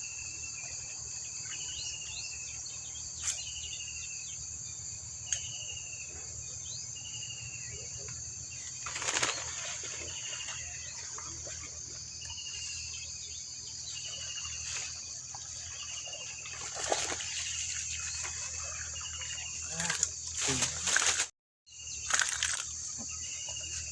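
Steady high buzz of insects with a short falling chirp repeating about once every second and a half, broken by several louder sudden bursts of noise, the loudest cluster near the end.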